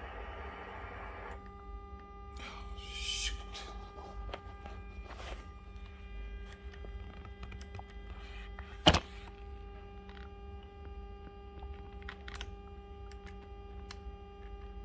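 Steady electrical hum with a thin whine over it, while the Ducati Multistrada's handlebar switch buttons click now and then as the PIN code is entered on the dash. A brief hiss comes around three seconds in, and a single sharp knock about nine seconds in is the loudest sound.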